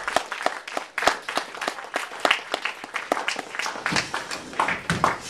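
Audience applauding, individual hand claps standing out in a quick irregular patter that thins out near the end.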